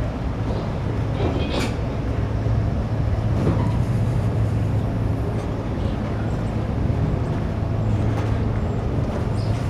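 A vehicle engine running steadily with a low hum as a parade float is moved along the street, with a couple of faint short high-pitched sounds over it.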